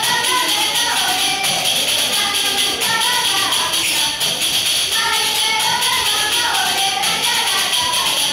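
Women singing a traditional Galician song together, accompanying themselves on pandeiretas (Galician jingled frame drums) beaten in a steady, driving rhythm.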